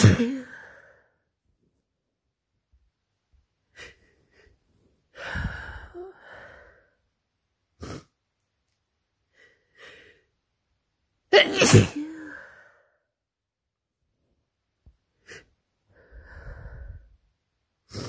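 Sneezes from a person with a runny head cold: one just as it begins and a loud one in two bursts a little past halfway, with breathy nasal sounds and short sniffs between them.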